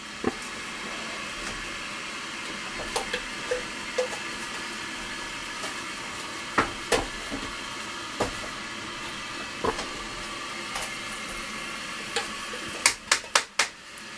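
Mugs, dishes and cutlery clinking now and then over a steady hiss, with a quick run of four clinks near the end.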